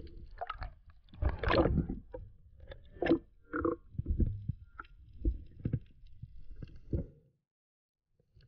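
Muffled, irregular swishes and knocks of water moving around an underwater action camera's housing as a diver swims over the reef, stopping abruptly about seven seconds in.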